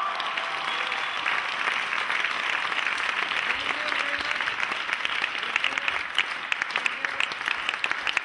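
Audience applauding, dense at first and thinning to more separate claps near the end.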